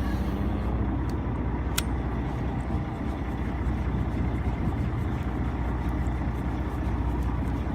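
Fishing boat's engine running steadily, a low drone, with a single sharp click about two seconds in.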